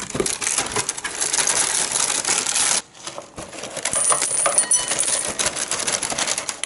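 A cardboard cereal box is opened and its plastic inner bag crinkles for the first few seconds, stopping abruptly. Then the bag is shaken over a bowl and a few chocolate cereal hoops rattle into it: the box is all but empty.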